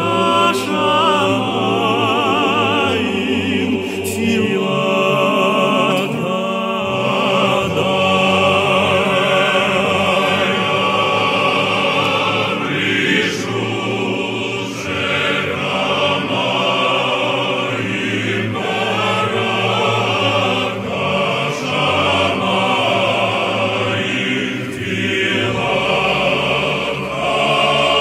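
Choral music: a choir singing, the voices carrying a wide vibrato that is clearest in the first few seconds.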